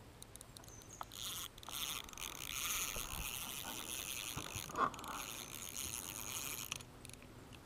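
Ultralight spinning reel being cranked against a hooked fish, its gears giving a steady fine high rasp that starts about a second in and stops near the end, with one short louder tick about five seconds in.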